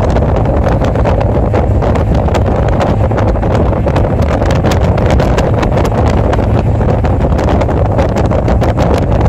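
Wind buffeting the microphone of a motorcycle riding at highway speed, loud and steady, with the bike's running and road noise beneath it and frequent brief crackles from the wind.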